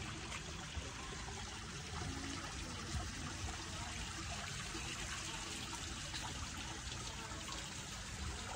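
Water from a garden fountain trickling steadily over a pile of stacked rocks.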